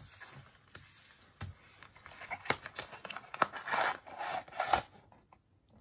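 Stiff paper and card packaging being handled and opened: irregular rustling, scraping and crinkling with a few sharp crackles, loudest from about two to five seconds in.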